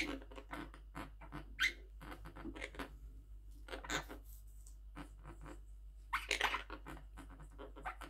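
Quaker parrots (monk parakeets) giving short, scattered harsh calls and chatters, mixed with beak clicks and nibbling at an apple slice. The longest, loudest burst comes about six seconds in.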